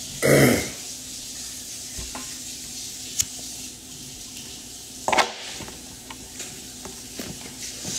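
A man smoking a joint: a short loud vocal sound just after the start, then a breathy rush as he blows out the smoke about five seconds in, over a steady low hiss.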